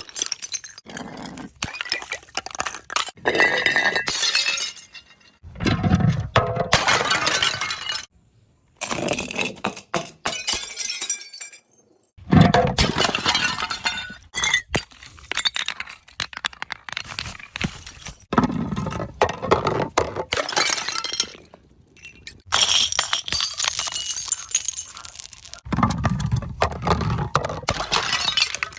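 Glass bottles breaking one after another, each a crash with crackling, clinking shards, some starting with a heavy low impact, in short separate bursts with brief gaps between them.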